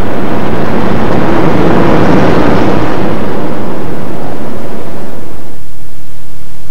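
Loud, steady rushing noise that swells and then drops away about five and a half seconds in, leaving a faint low hum.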